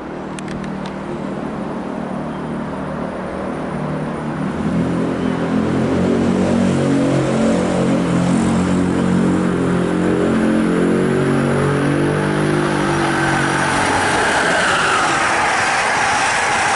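Amtrak Northeast Regional passenger train approaching and passing at speed, growing steadily louder. A steady chord of low tones is held from about four seconds in until near the end. Then comes the rushing rumble of the cars' wheels on the rails as the train goes by.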